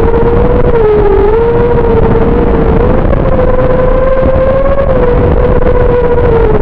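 XBEE X v2 FPV racing quadcopter's motors and propellers whining at high throttle over a dense rushing noise. The pitch wavers with the throttle, dipping about a second in and again near the end.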